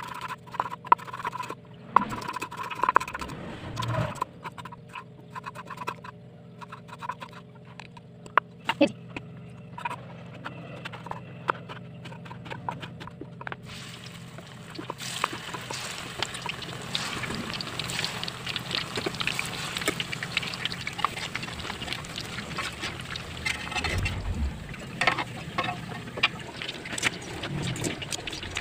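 Kitchen knife chopping on a wooden cutting board, a run of sharp separate knocks. About fourteen seconds in, the sound changes abruptly to a steady sizzle full of small crackles: battered tempe (mendoan) frying in hot oil.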